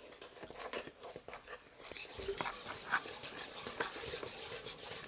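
A kitchen scooper scraping and clinking against a bowl as ingredients are scooped and dumped in for bread dough, a quick run of small scrapes and clicks that grows busier about two seconds in.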